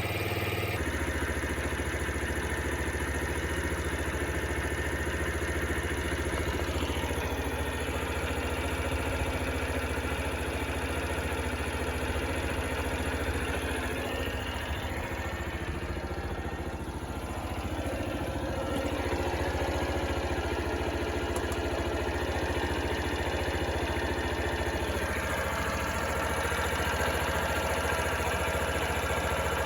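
Honda Super Cub 50's small air-cooled single-cylinder four-stroke engine idling steadily, running on fresh oil. It dips slightly in level about halfway through, then carries on evenly.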